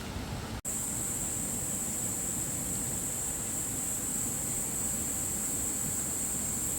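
Steady rain falling, an even hiss, with a continuous high-pitched whine coming in after a brief cut about half a second in.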